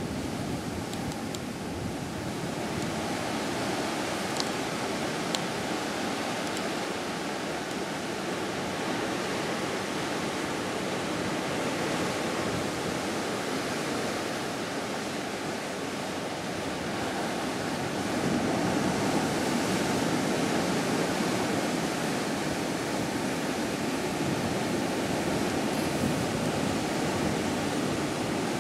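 Steady rush of open sea and wind around a cargo ship under way, a little louder in the last third.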